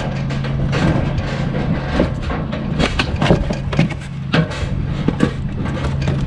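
Irregular knocks and clatter over a steady low hum.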